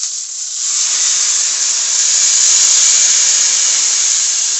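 Dry white wine poured into a hot stainless-steel skillet of browned chicken, deglazing it: a loud hissing sizzle of steam that swells about half a second in and eases slightly near the end.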